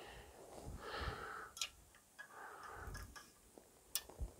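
Faint breathing, a few soft breaths of about a second each, with a few short sharp clicks between them.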